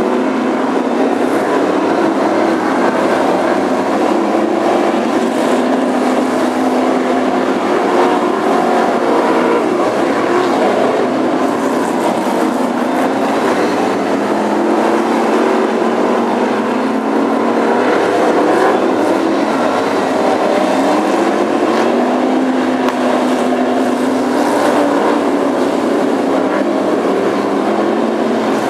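Several BriSCA F1 stock cars' V8 engines racing together, a dense continuous din with engine notes rising and falling as cars accelerate and lift through the bend.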